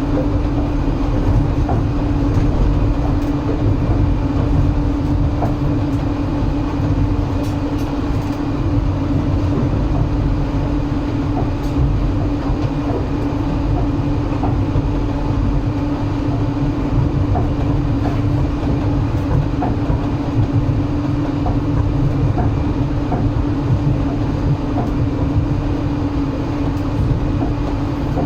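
Passenger train running along the rails, heard from inside the carriage: a steady low rumble of the wheels with a steady droning hum and faint scattered clicks.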